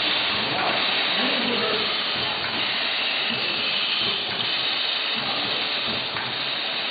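Steady hissing of a running pneumatic tapping machine, even throughout with no clear rhythm.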